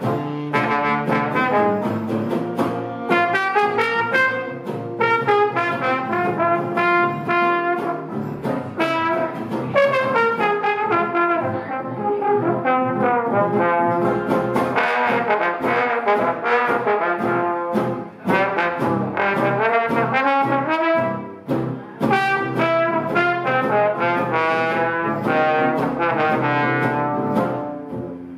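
Small jazz band playing live: a trombone carries the lead line over acoustic guitar and upright bass accompaniment.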